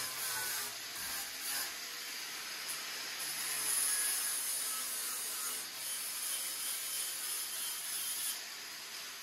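Angle grinder grinding the steel bodywork of a car's engine bay, throwing sparks. A steady grinding hiss that swells and eases a little as the disc bites.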